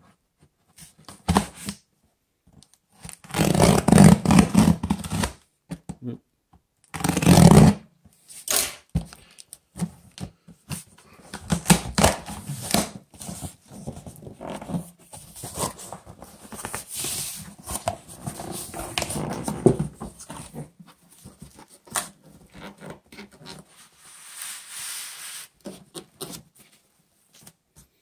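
A cardboard shipping box being opened by hand: packing tape torn off the box, the two loudest rips coming a few seconds in, then cardboard flaps and packing scraping and rustling as the inner box is worked out.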